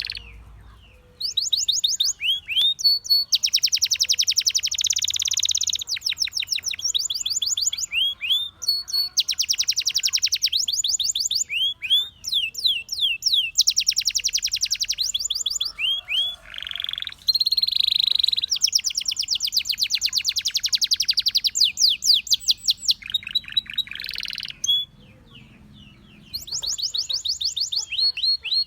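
Canary singing: long runs of very fast repeated trills and rolls, high-pitched, phrase after phrase with short breaks, and a pause of a couple of seconds near the end.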